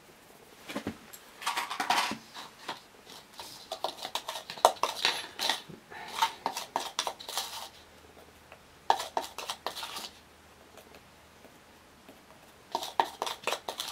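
Light clattering and knocking of a plastic funnel and small items being handled and set down on concrete paving, in three spells of quick clicks with short pauses between.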